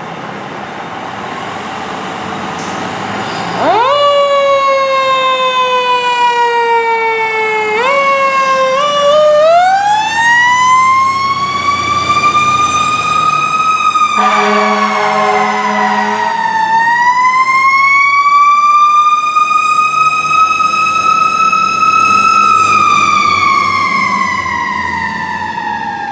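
A 2006 Pierce Dash heavy rescue truck pulling out with its engine running, then its siren coming on sharply a few seconds in and wailing, its pitch rising and falling slowly. About halfway through, a steady horn blast of about two seconds sounds over the siren.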